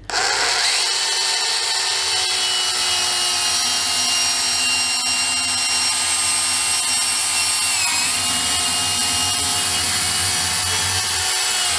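Bosch EasyCut 12 cordless 12-volt chain-blade saw switched on and running steadily as it cuts through a block of cheese: a constant motor whine that dips briefly in pitch about eight seconds in as the blade takes more load.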